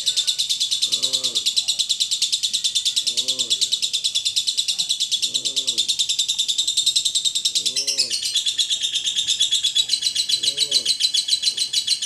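Fischer's lovebird singing its 'ngekek', a long unbroken, very fast chattering trill that runs on without pause. A short low call repeats about every two seconds beneath it.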